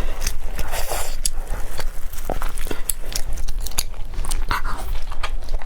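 Close-miked eating sounds of someone biting and chewing tteokbokki rice cakes, with many sharp, irregular mouth clicks.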